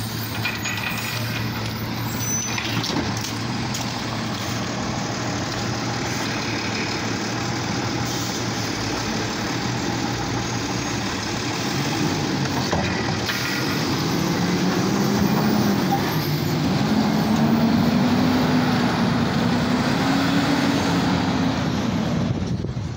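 Automated side-loader garbage truck's diesel engine running steadily, its pitch rising and wavering through the second half as it works and pulls away.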